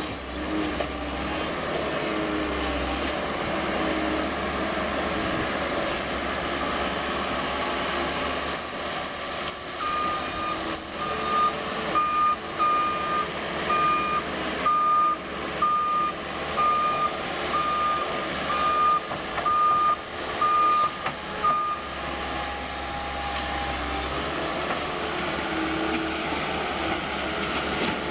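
New Holland L230 skid steer loader's diesel engine running, with its reversing alarm beeping about once a second for roughly twelve seconds in the middle as the machine backs up.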